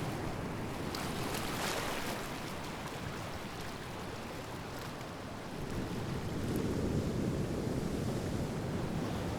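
Ocean waves washing onto a shore: a hissing wash of surf about a second in, then a deeper, louder surge of a wave building around two-thirds of the way through.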